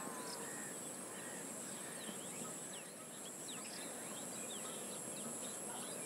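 Steady high-pitched insect trilling, like crickets, with many short bird chirps scattered through it over a soft outdoor background hiss.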